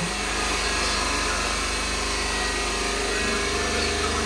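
A motor running steadily, a constant low hum with no change in speed.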